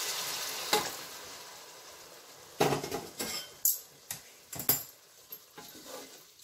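Hot water poured into a pot of frying spiced bitter field beans, hissing and fading out over the first two seconds. Then a wooden spatula stirring, knocking and scraping against the pot several times.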